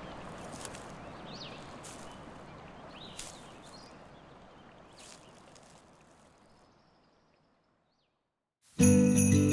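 Outdoor woodland ambience: a steady rushing noise with a few short bird chirps and scattered clicks, fading out to silence. Near the end, music starts abruptly with jingling bells over low sustained notes.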